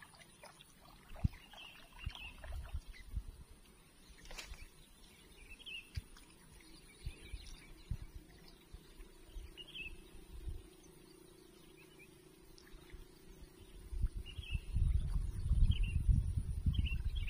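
Short bird chirps repeating every second or two over low rumbling and thumps. There is a sharp click about four seconds in, a faint steady hum through the middle, and louder low rumbling from about fourteen seconds.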